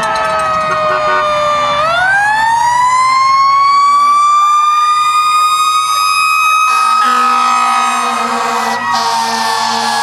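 Fire engine siren wailing: its pitch climbs steeply about two seconds in, holds high, then slowly winds down. A lower, steady horn tone joins about seven seconds in.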